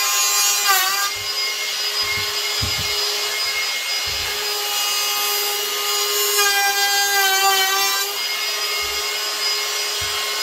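Handheld router with a Roman ogee bit running at full speed, cutting a profile along the edge of a wooden board. Its steady high whine dips in pitch about a second in and again midway as the bit loads up in the wood, with a few light knocks of the tool against the board.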